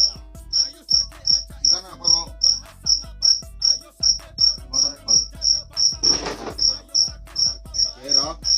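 A cricket chirping loudly and steadily, one short, high chirp about three times a second.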